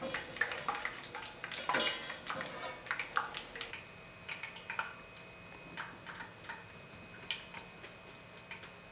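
Metal tongs clicking and clattering against a stainless steel mesh strainer and bowl as fried chicken pieces are set in. The clatter is busiest over the first three seconds or so, loudest about two seconds in, then thins to a few scattered light clicks.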